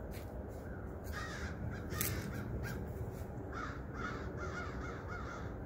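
A large flock of crows cawing, many calls overlapping and coming thick from about a second in, over a steady low rumble.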